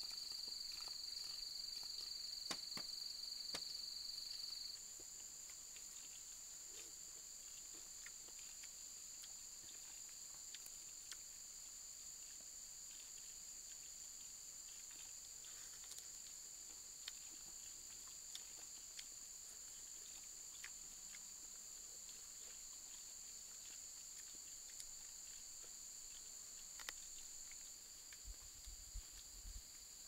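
Faint steady high-pitched drone of insects, in two pitches; the lower one stops about five seconds in. Scattered faint clicks and taps.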